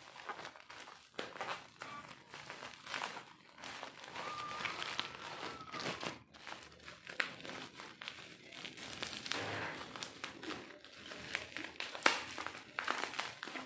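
Plastic packaging crinkling and rustling in irregular crackles as wrapped accessories are handled and unwrapped.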